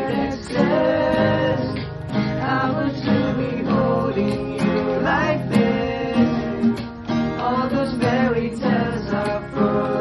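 Music: singing over acoustic guitar.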